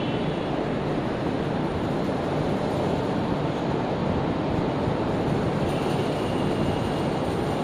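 A steady rushing background noise, even and unchanging, with no distinct events.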